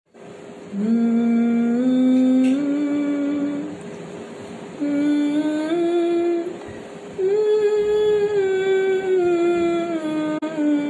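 A woman's unaccompanied voice humming a slow melody in long held notes, in three phrases: the first two step upward in pitch, the third starts high and steps down.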